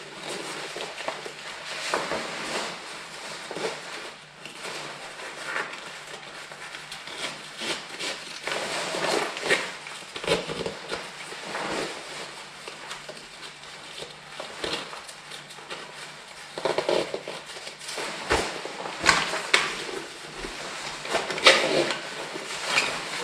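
Irregular rustling and crinkling as a textile motorcycle jacket is handled and turned over. Scattered clicks run through it, with a louder stretch of sharper handling noise near the end.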